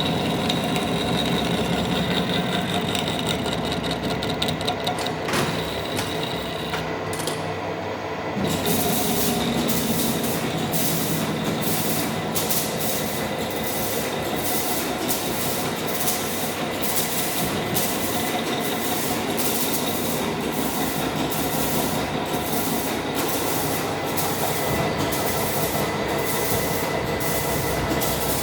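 Metal lathe running while turning down the steel end of a cart axle: a steady machine drone with the scraping of the cutting tool. From about eight seconds in there is a fast, regular ticking.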